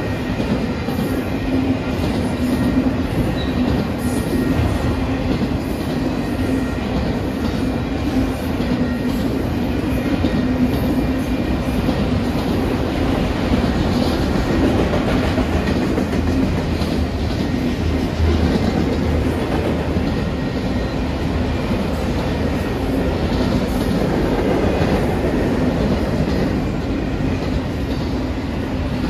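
Freight train of autorack cars rolling steadily past: continuous wheel and car noise on the rails, with a low steady hum underneath.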